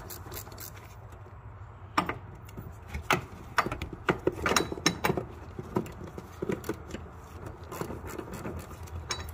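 Metal hand tools and fasteners clicking and clinking in irregular light taps, with a cluster of sharper knocks around the middle.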